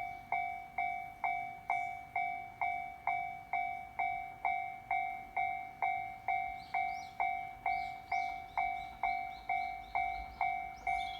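Japanese level-crossing warning bell ringing steadily, a little over two strikes a second, each strike a two-tone ding that dies away quickly. Near the end a low rumble builds beneath it as the train approaches.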